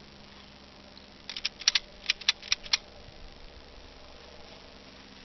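Ratchet strap hardware being worked, giving a quick run of about ten sharp metallic clicks over about a second and a half, starting a little over a second in.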